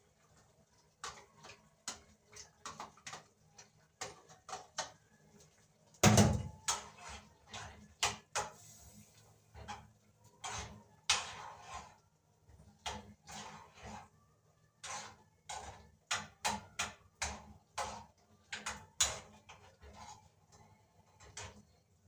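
Kitchen utensils and cookware knocking and clinking against pots and pans in irregular clusters, with the loudest knock about six seconds in.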